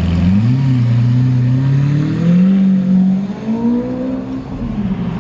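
Lamborghini Aventador's V12 engine pulling away from idle and accelerating, its pitch climbing, dropping briefly at a gear change about three seconds in, then climbing again before falling off near the end.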